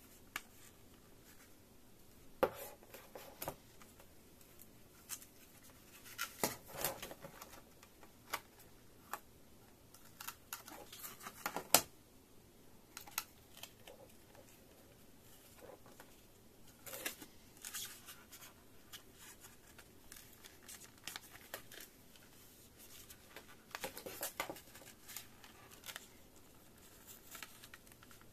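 Stiff clear plastic clamshell packaging and a small zip-lock bag being handled: scattered clicks, taps and brief crinkles of plastic, the sharpest a little under halfway through.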